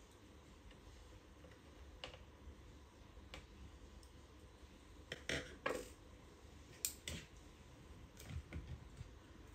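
Faint, scattered clicks and light taps of hand work inside a laptop: a screwdriver working the battery screws, then the battery's plastic clattering as it is lifted out of its bay. The sharpest clicks come about five to seven seconds in.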